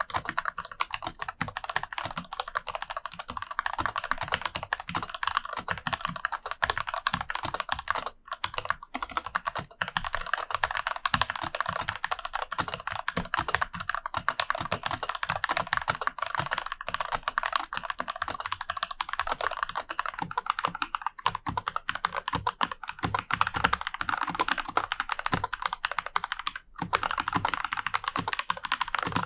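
Typing test on a Rosskey R1 Lite 60% mechanical keyboard with Gateron G Pro switches and double-shot PBT keycaps: a fast, continuous patter of keystrokes with a couple of short breaks, once around eight seconds in and once near the end.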